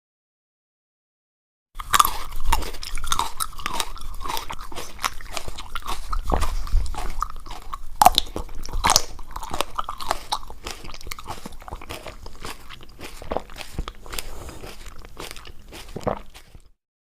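Close-miked eating: a person bites and chews crunchy food, with dense, crisp crunches one after another. It starts suddenly about two seconds in and stops abruptly shortly before the end.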